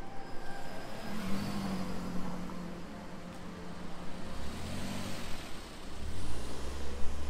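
Two road vehicles passing close by, one after the other: first a car, with engine hum and tyre noise swelling about a second in, then a small van, whose engine brings a deeper steady hum from about four and a half seconds in.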